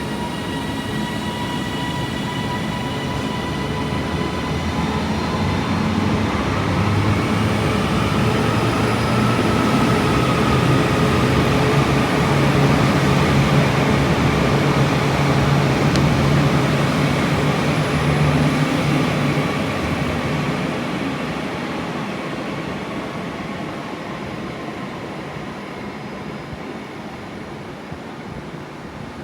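A train running past on the tracks, its noise swelling to a peak midway and then fading away as it recedes.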